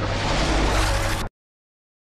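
Loud rushing noise over a low rumble that cuts off abruptly a little over a second in, leaving dead silence.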